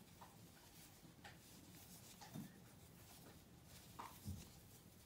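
Near silence with a few faint soft rustles and taps of a crochet hook and yarn being worked.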